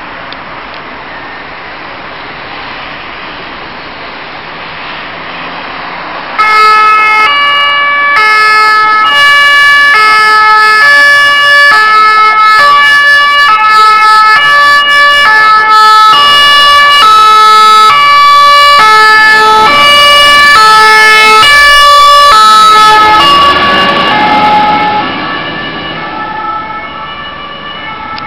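Scania P400 fire engine passing on an emergency run with its two-tone siren sounding. Before the siren there is a steady rush of traffic. About six seconds in the siren starts suddenly and loud, alternating high and low notes. Near the end it fades and drops in pitch as the truck moves away.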